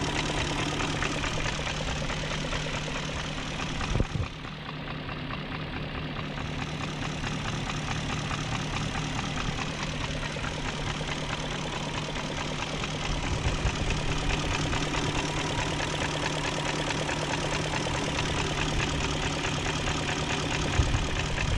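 BMW M62TU 4.4-litre V8 idling steadily with a light, fast ticking, a tick that persists after new timing chain guides and tensioner and that the owner partly puts down to the injectors clicking. A single brief thump about four seconds in.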